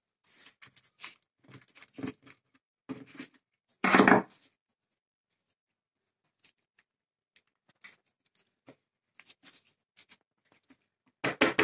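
Hands working pastry dough into a fluted tart tin on parchment paper: soft rustles and light taps, with one louder thump about four seconds in, then long quiet stretches with only faint ticks.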